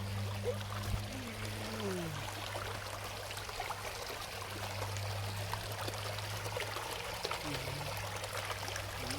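Creek water running, a steady rushing over a low hum.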